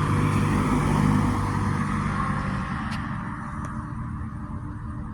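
A car passes, its road noise swelling to a peak about a second in and then fading, over the lingering hum of a church bell striking eight o'clock.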